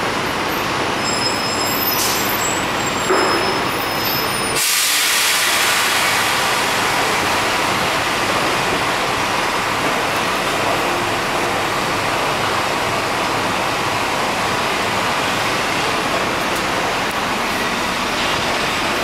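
R188 subway train pulling out and running away on elevated track: steady rail and wheel noise, with faint high wheel squeals in the first few seconds and a brief clank about three seconds in. About four and a half seconds in, the sound turns abruptly hissier and then holds steady.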